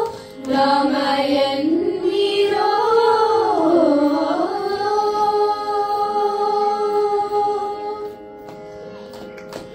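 A group of children singing a Carnatic devotional song together over a steady drone. The melody dips and climbs back to a long held note, which fades about eight seconds in and leaves the drone sounding quietly.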